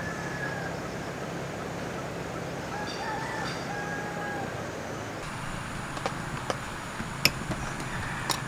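A rooster crowing, once at the start and again about three seconds in, over a steady outdoor hiss. Near the end come a few light clicks and taps.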